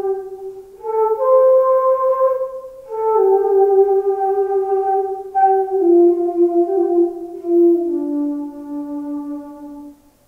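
Solo transverse flute playing a slow melody of long held, breathy notes that step gently from pitch to pitch. There is a short break for breath near the end.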